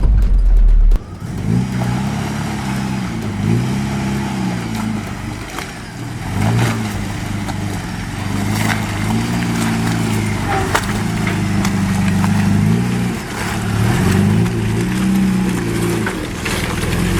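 A 4WD's engine working over a rough, rocky track, its pitch rising and falling every second or two as the throttle is fed on and off, with crunching and knocks from rocks under the tyres and the suspension. A loud low rumble in the first second cuts off abruptly.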